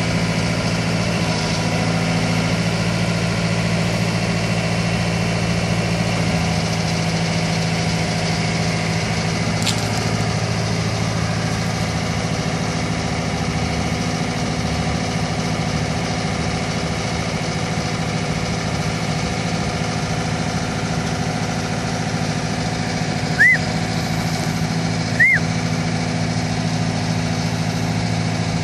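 Telescopic boom lift's engine running at a steady pitch while the boom is worked from the basket. Two short rising-and-falling chirps sound near the end, under two seconds apart.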